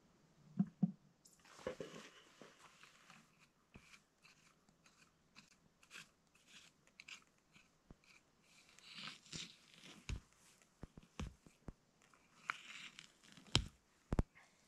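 Hands raking and digging through dry pine-needle duff and twigs on the forest floor: an irregular crunching rustle with many sharp snaps and clicks, the sharpest near the end.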